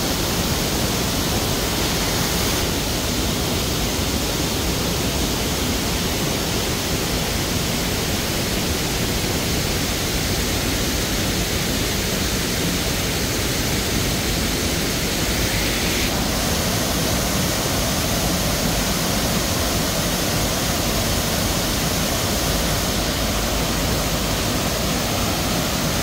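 Water rushing over the low, wide, tiered cascades of a waterfall running high with rainy-season flood water. It makes a steady, even rush that shifts slightly in tone about three seconds and sixteen seconds in.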